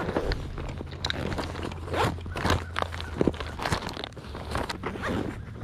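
Fishing tackle being handled as a worn soft swim bait is swapped for a new one: irregular rustles, clicks and light knocks.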